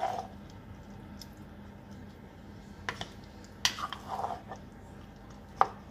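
Silicone spatula stirring chunks of cassava and banana in thick coconut milk in a pot: a few scattered soft knocks and wet squelches, the sharpest near the end, over a faint steady hum.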